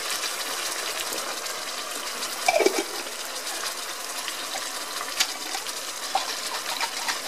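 Jackfruit pieces in oil and barbecue sauce sizzling in a frying pan: a steady crackling hiss. A brief louder noise comes about two and a half seconds in.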